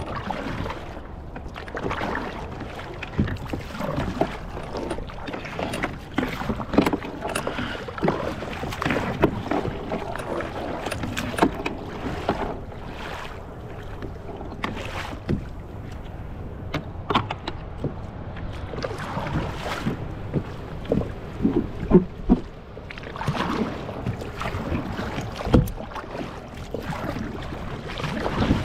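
Water splashing and sloshing around a kayak, with irregular knocks against the hull.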